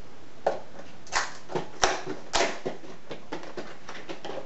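Cardboard packaging of a Pokémon trading-card collection box being pried and torn open by hand: a string of sharp crackles and snaps, the loudest about two seconds in.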